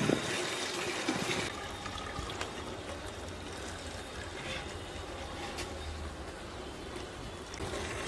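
Fresh milk poured in a steady stream from a large aluminium can into a steel milk can.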